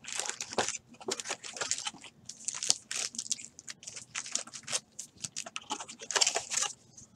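Foil trading-card pack wrappers crinkling and rustling in a quick run of short crackles as a stack of packs is handled.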